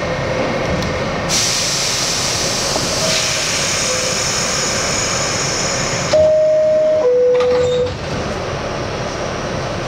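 R68 subway car standing in a station with its equipment running: a steady hiss starts suddenly and cuts off after about five seconds, then the two-tone door chime sounds, a higher tone followed by a lower one, each just under a second, signalling that the doors are about to close.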